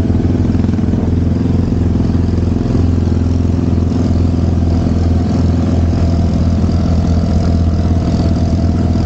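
Suzuki SkyDrive Crossover scooter's 113cc single-cylinder engine running hard at a steady, constant pitch while climbing a dirt trail.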